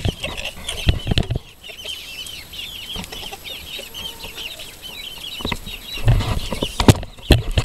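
Chickens in a run: a dense chorus of short, high peeps from young chicks, with clucking, and heavy bumps and rustling near the start and again from about six seconds in.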